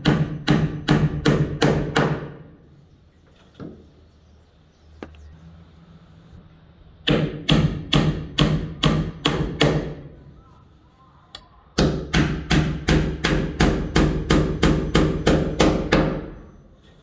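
Hammer driving a nail into wood: three runs of quick, even blows, about three or four a second, each strike ringing briefly, with short pauses between the runs.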